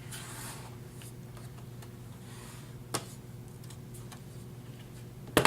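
Faint handling and scraping on a MacBook Pro's aluminium bottom case as it is worked off, with a click about three seconds in and a sharper double click near the end, over a steady low hum.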